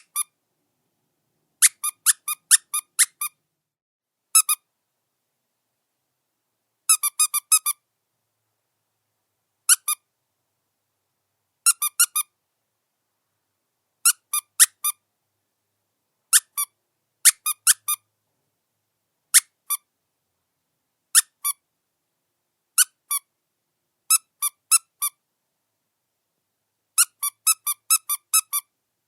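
Squeaky dog chew toy squeezed in short groups of one to six quick high-pitched squeaks, with silent gaps of about one to two seconds between the groups.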